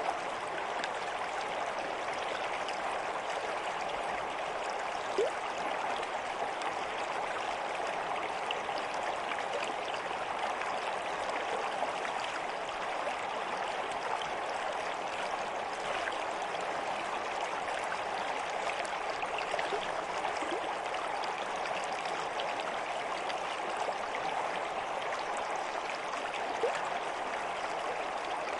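Water flowing in a stream, a steady even rush with a couple of brief plinks.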